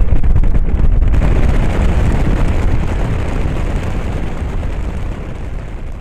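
Strong wind buffeting the microphone: a deep, gusty rumble that slowly dies down toward the end.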